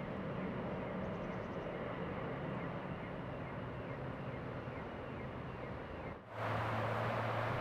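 Jet airliner engine noise, a steady rumble and hum. About six seconds in it breaks off and comes back louder and brighter.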